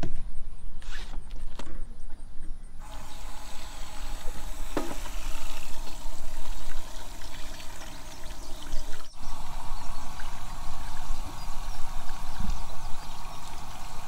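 Tap water running and splashing over crabs held under it by hand, draining into a stainless steel sink. The flow comes on fuller about three seconds in and runs steadily.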